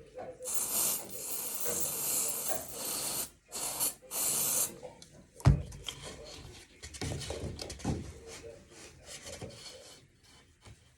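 Work on a wooden interior door frame: a rasping hiss of wood being rubbed or worked for about three seconds, then a shorter one. A single sharp knock comes about five and a half seconds in, followed by lighter knocks and rattling of the frame parts.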